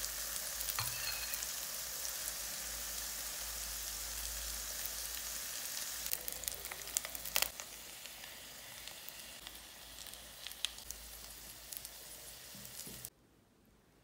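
Shredded potato and egg frying in a little oil in a non-stick pan: a steady, high sizzle. A few sharp metal clicks come about six to seven seconds in as the steel ring mold is handled and lifted off, after which the sizzle is quieter, and it cuts off suddenly near the end.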